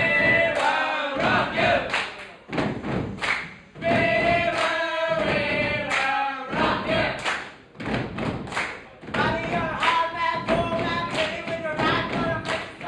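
A group of teenage boys singing together, with repeated thumps from their movements on the stage mixed into the singing.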